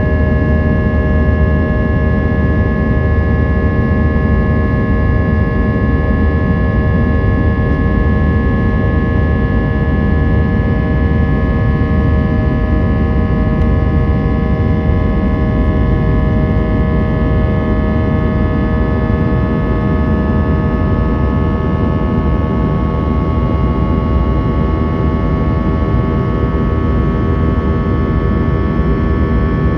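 Airbus A320's IAE V2500 turbofan engines running steadily at high thrust: a loud, even drone with several steady tones sounding over it.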